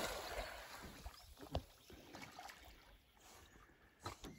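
Splash of a dog jumping into a lake dying away over the first second, then faint water sounds as the dog swims, with a few soft ticks.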